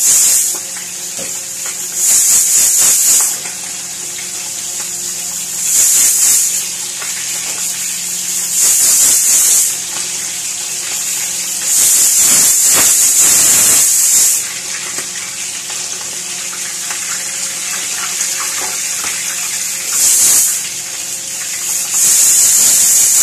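Fish frying in hot oil in a pan, sizzling steadily, while a stovetop pressure cooker at pressure vents steam in loud, high hissing spurts of one to two seconds, about seven times.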